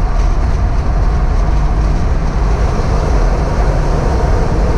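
Steady road and tyre noise of a car driving at freeway speed, heard from inside the cabin: a loud, even low rumble.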